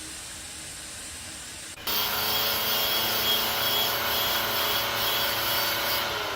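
Handheld electric power tool switched on about two seconds in, running at a steady speed with a whine, then starting to spin down with falling pitch at the end.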